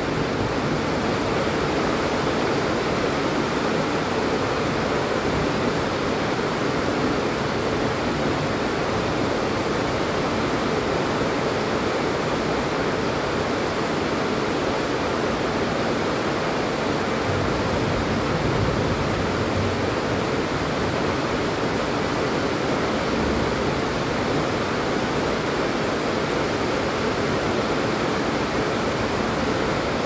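Steady rain falling, an even hiss with no thunder.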